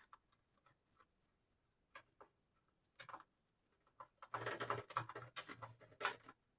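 Faint handling noise of electrical wiring work: a few scattered small clicks, then from about four seconds in a denser run of scraping and rustling clicks as a cable jumper is fitted to the fuse holder and breaker terminals.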